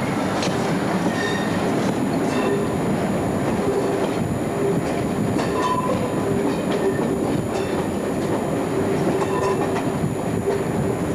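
Passenger train coaches running round a curve, heard from an open carriage window: a steady rumble of wheels on rail with scattered clicks over rail joints and brief high squeals from the wheel flanges.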